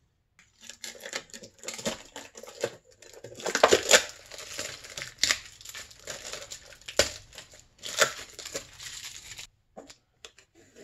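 Wrapping crinkling and rustling as it is handled and pulled out of powder-coated two-stroke snowmobile cylinders, with a few sharper crackles along the way. It stops shortly before the end.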